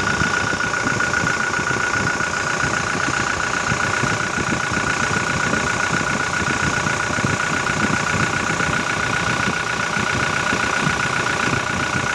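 Toyota Innova four-cylinder common-rail turbodiesel idling steadily at operating temperature, heard close up in the engine bay. It has the fast, even diesel clatter with a steady high whine over it.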